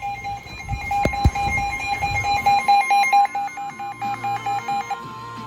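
Weather radio warning alarm: fast beeping, about four beeps a second, over a steady high tone. The beeping stops about five seconds in while the tone carries on. A low rumble with two sharp cracks comes about a second in.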